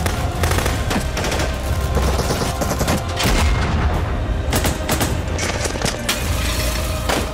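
Battle gunfire: machine-gun and rifle shots cracking in quick, irregular runs over a steady low rumble.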